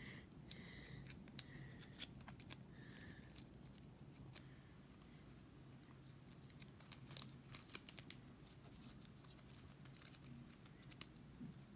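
Faint, scattered clicks and light rustling from handling the packaging and contents of an iPhone box, with a quick run of clicks a little past the middle.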